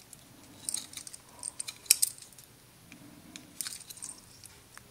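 Light clicks and clinks of hands handling a 3D-printed plastic motor mount and a brushless motor's wires, a few scattered taps with the sharpest about two seconds in.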